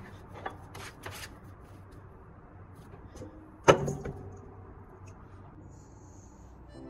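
Dough and a metal mixing bowl being handled by hand: a few soft taps and rustles, then about midway one sharp knock of the metal bowl that rings briefly.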